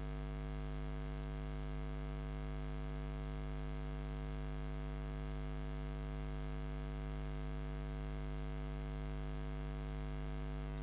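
Steady electrical mains hum, a low buzz with a ladder of overtones above it, unchanging throughout.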